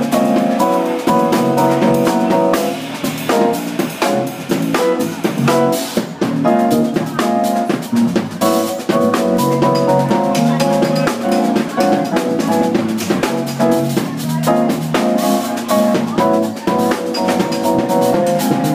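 Live jazz trio of electric keyboard, electric bass and drum kit playing an instrumental piece: held keyboard chords over bass and dense drumming with frequent cymbal and drum strikes.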